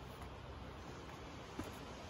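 Faint steady low rumble of background noise, with one small sharp click about one and a half seconds in.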